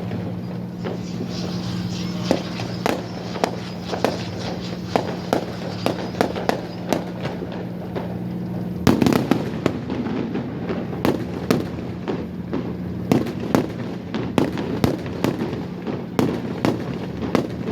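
Fireworks display: a rapid run of sharp bangs and crackles, with a heavier, denser burst about nine seconds in. Under it a steady low hum runs and stops about two-thirds of the way through.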